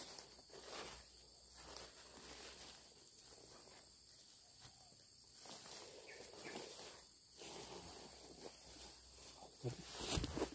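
Faint footsteps and rustling through vegetation, with a few louder thumps near the end.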